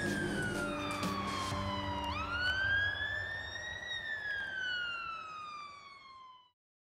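Fire engine siren sounding a slow wail: the pitch falls, sweeps up over about two seconds, then slides down again as it fades and cuts off about six and a half seconds in.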